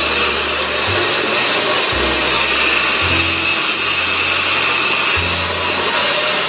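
Countertop blender running steadily on its turbo setting, blending a jar full of liquid corn pie batter of cream, milk, eggs and corn. Background music with a changing bass line plays underneath.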